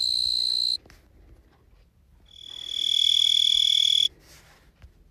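Recorded tree cricket songs played back one after another: a steady high-pitched trill that cuts off abruptly, a short pause, then a second, slightly lower continuous trill lasting about two seconds that also stops suddenly.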